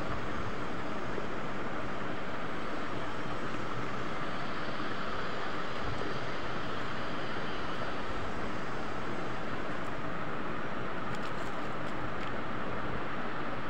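Steady mechanical drone of running machinery, an even hum and hiss that does not change, with a few faint light clicks about eleven seconds in.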